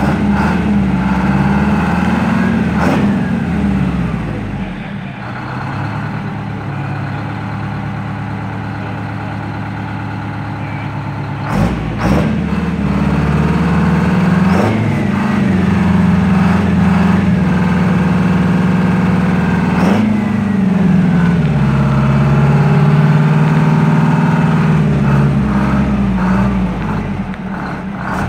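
The diesel engine of a 1967 Brockway 459 truck, just started, running and revved up and down several times, with steadier running between the revs. A couple of sharp clicks come about midway.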